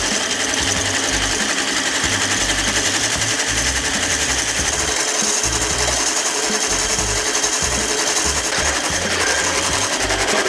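Electric hand mixer running steadily, its beaters whipping egg whites with lemon juice and sugar in a stainless steel bowl toward stiff peaks.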